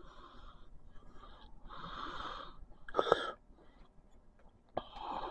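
A person's noisy breaths close to the microphone: several drawn-out breaths, with a sharper one about three seconds in.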